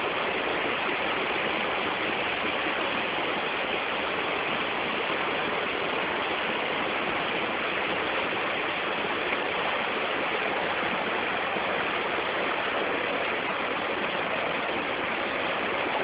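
Rainforest waterfall gushing: a steady, even rush of falling water.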